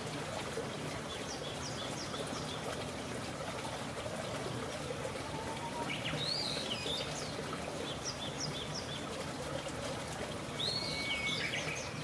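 Steady rushing of a waterfall, with birds chirping over it in short clusters: a few quick chirps about a second in, a run of chirps and whistled calls around the middle, and more near the end.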